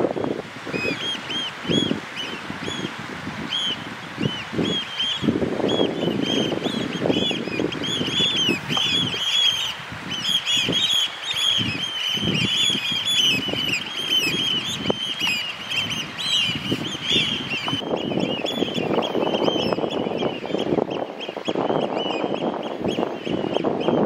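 A flock of Eurasian oystercatchers calling in flight: many shrill, short piping notes overlapping in a rapid chatter, thinning out in the last few seconds. A low rushing noise runs beneath, swelling near the start and toward the end.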